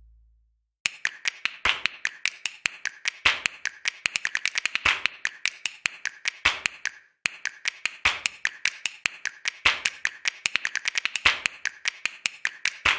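Pencil tip tapping and scratching on sketchbook paper: a quick, irregular run of sharp taps, several a second, with a short break about seven seconds in.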